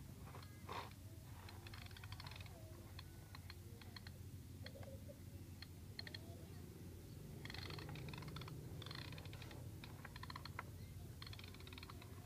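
Faint gritty crackling of sand being scraped and pushed by a plastic toy front loader's bucket and wheels, in several short bursts with scattered ticks between, over a steady low hum.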